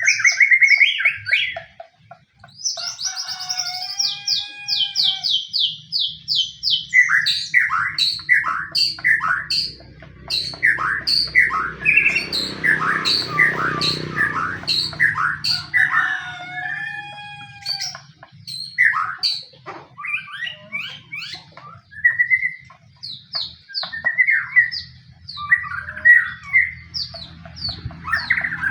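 White-rumped shama (murai batu) song: a fast, varied run of loud whistles, rapid trills and sharp chirps, the aggressive fighting song that keepers play as a lure to provoke other birds into singing. A faint steady low hum runs underneath.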